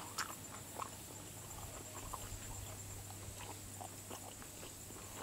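Faint chewing and wet mouth clicks of someone eating a fried hand pie close to the microphone, in small scattered clicks.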